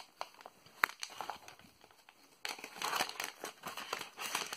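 Plastic and paper packaging crinkling as it is handled, with a sharp snap about a second in. After a short quieter spell, the crinkling grows denser from about halfway through.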